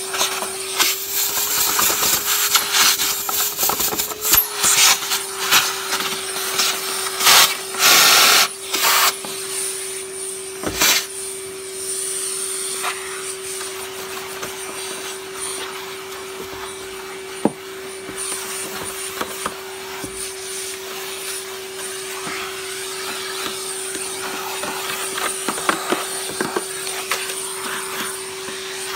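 Vacuum cleaner running with a steady motor whine. For the first ten seconds or so it is broken by clattering knocks and rushes of air as the nozzle is worked over parts. After that it runs steadily.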